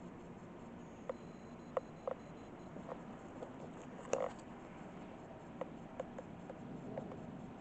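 Quiet room with faint, scattered small clicks and a short rustle about four seconds in as the camera is swung around.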